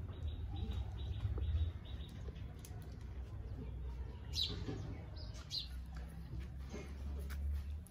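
A few short bird chirps, one about four and a half seconds in and a couple more about a second later, over a steady low rumble.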